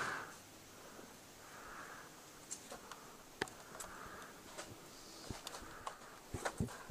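Slow, steady breathing close to the microphone, a soft breath about every two seconds, with scattered small clicks and knocks from handling and shifting position, more of them near the end.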